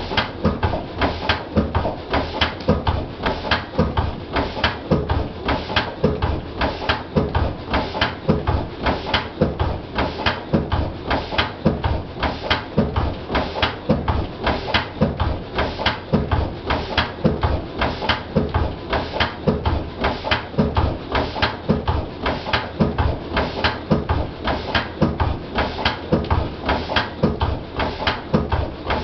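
Single-cylinder Lister CS stationary diesel engine running steadily, each firing stroke a sharp beat in an even, unchanging rhythm.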